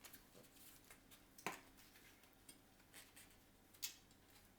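Faint clicks of a tyre lever being worked under a bicycle tyre's bead against the rim, with two sharper clicks about a second and a half in and about four seconds in.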